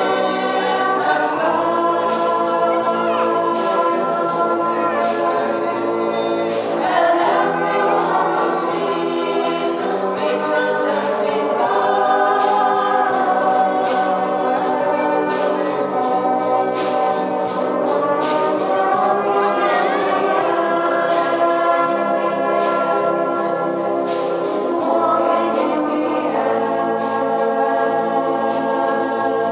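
Many voices singing a Christmas song together, accompanied by a wind band with brass.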